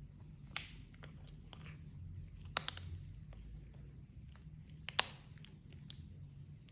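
British Shorthair cat chewing and crunching a dried rabbit ear: a run of short crisp crunches, with two louder cracks about two and a half and five seconds in.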